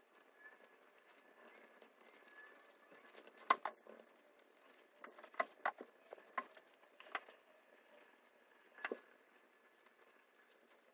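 Faint handling noise: a few scattered clicks and knocks, the sharpest about three and a half seconds in and another near nine seconds, over quiet room tone.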